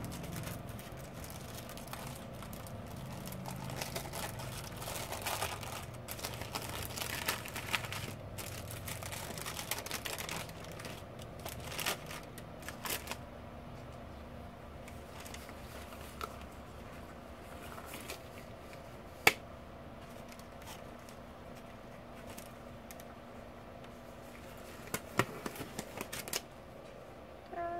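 Paper and plastic wrapper of a sterile glove pack crinkling and rustling as it is opened and unfolded, mostly in the first half. There is a single sharp click about two-thirds through and a few more clicks near the end.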